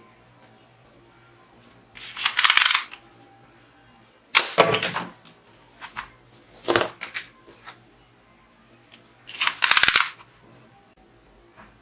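Plastic toy revolver being fired and plastic toy bowling pins clattering as they are hit, in four separate bursts of sharp clatter a couple of seconds apart.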